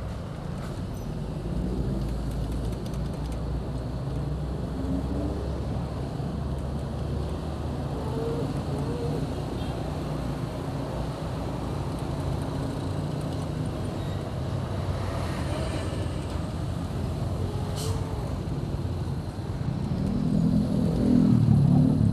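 Motorcycle riding in traffic: steady engine and road noise. The engine note climbs and gets louder near the end.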